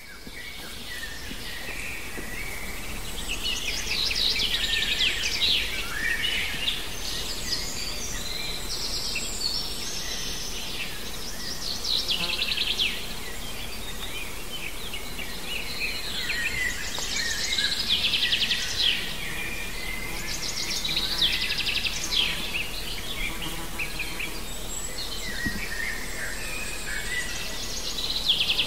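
Several songbirds singing, a busy mix of short chirps and fast trilled phrases, over a steady faint outdoor hiss; it fades in over the first couple of seconds.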